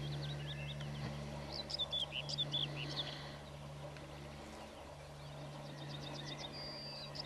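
Small songbirds chirping and trilling over a steady low hum: a burst of sharp high chirps in the first half, then a fast, even trill near the end.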